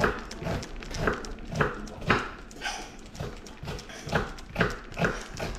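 A block of cheese rubbed over a red-handled handheld grater in regular rasping strokes, about two a second.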